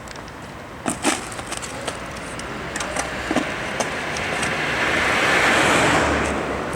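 A car passing on the street, its road noise swelling to a peak and fading in the second half. Two sharp knocks about a second in and a few lighter clicks follow.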